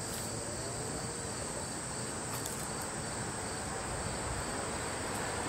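Insects trilling steadily, a continuous high-pitched sound over a faint low background hum.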